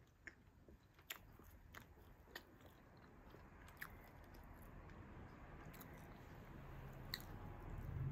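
Faint crackles and soft tearing as a baked sweet butter bread roll with a sugar-crusted top is pulled apart by hand, with a few scattered light clicks over a low background hiss that grows toward the end.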